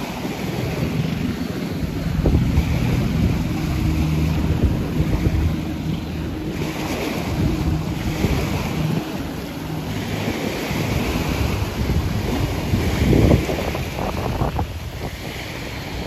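Small waves breaking and washing up a sand beach in repeated surges, with wind buffeting the microphone in low rumbles and a strong gust about 13 seconds in.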